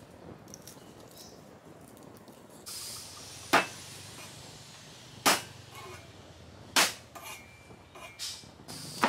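Three sharp whacks about a second and a half apart, the flat of a cleaver smashing garlic cloves on a plastic cutting board, followed by a few lighter knocks. Insects hum steadily in the background from about three seconds in.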